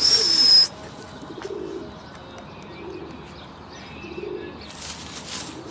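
Domestic pigeons cooing, low coos repeating every second or so. At the very start there is a brief loud hiss with a high whistling tone lasting under a second.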